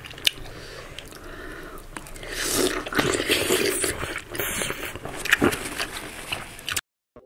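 Close-up biting into and chewing red jambu (rose apple), with several separate bites. The sound cuts off abruptly near the end.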